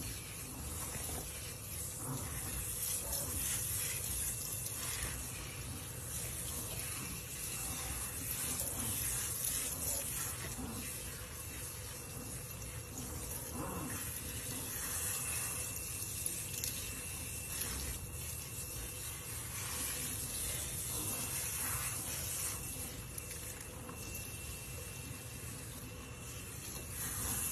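Kitchen sink faucet sprayer running steadily, water hissing and splashing into the sink and over wet puppies.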